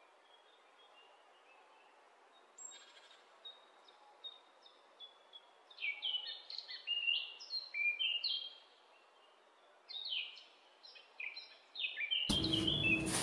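Birds chirping in a quick run of short, falling notes, thickest in the middle and toward the end. About a second before the end, a much louder steady noise with a low hum cuts in abruptly.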